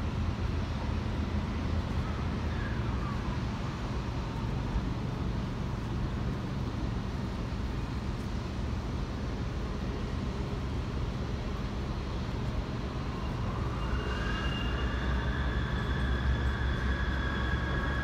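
Remote-controlled slope mower's engine running steadily with a low hum as it cuts grass on a slope. A higher whine rises about two-thirds of the way through and holds to the end.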